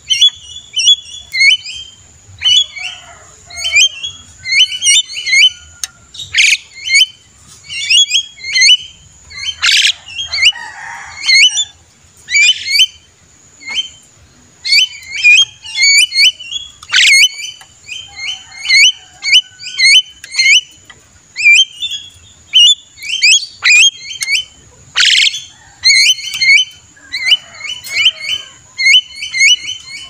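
Javan myna calling noisily: a fast, continuous run of short chattering whistled notes, broken about four times by a louder, harsher squawk.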